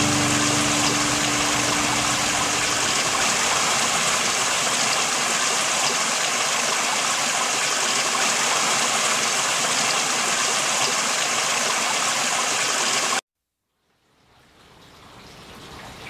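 Small waterfall pouring into a rock pool: a steady rush of falling water, with soft background music fading out in the first few seconds. The sound cuts off suddenly about 13 seconds in, and water noise fades back in near the end.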